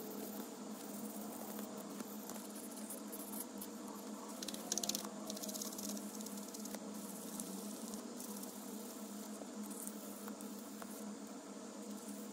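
Sandpaper rubbed by hand along a thin O1 tool-steel rod, a steady scratchy rasping that gets louder briefly about five seconds in, over a steady low hum.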